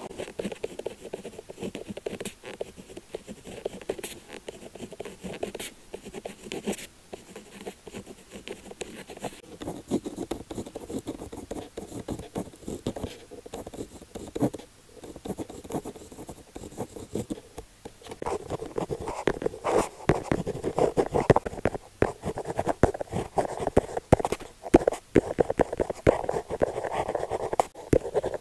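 Rollerball pen tip writing on paper: a continuous scratching of many short strokes, growing louder about two-thirds of the way through.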